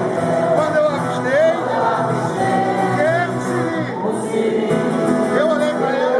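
Music with singing voices over a steady instrumental backing.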